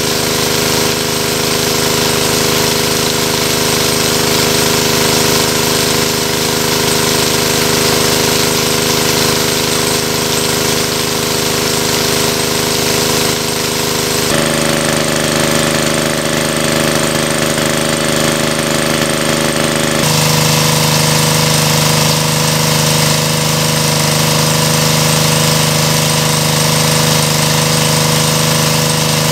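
Small engine-driven portable water pump running steadily under load, with the thick jet of water from its outlet hose gushing and splashing. The engine note shifts abruptly a little past halfway and again about two-thirds through.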